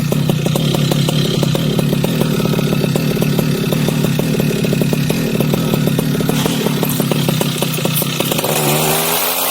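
Road construction machinery engine running steadily with a fast, even pulsing rattle. Near the end the sound changes and an engine's pitch rises.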